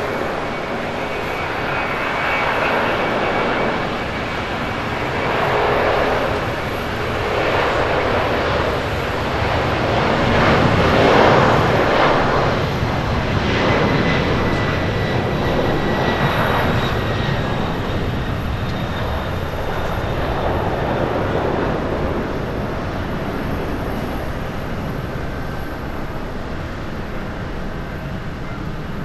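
Jet noise from a Boeing 767-300ER's twin turbofan engines at takeoff power as the airliner rolls down the runway and lifts off. The noise swells and eases in waves, with a faint steady whine, and slowly fades as the plane climbs away.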